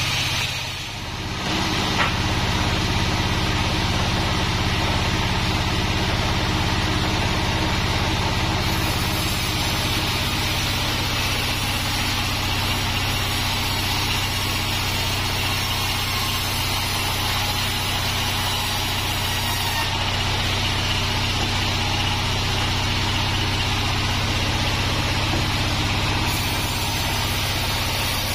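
Large sawmill log band saw running, a steady low mechanical hum that dips briefly about a second in.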